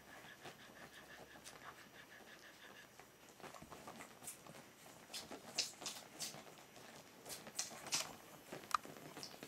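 Mother dog panting softly for the first few seconds, then two-week-old Berger des Pyrénées (Pyrenean Shepherd) puppies suckling at her teats, with scattered wet smacking clicks and a short squeak near the end.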